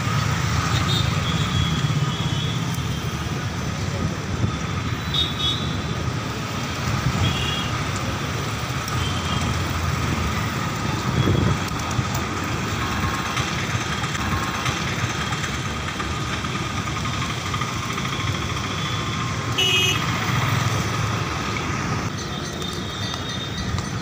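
Steady road traffic noise with vehicles passing, and a few brief high beeps now and then, typical of horns.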